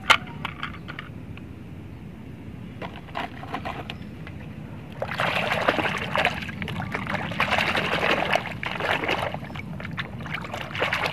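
A short knock, then water sloshing and splashing as a muddy toy is washed, growing louder and busier about halfway through.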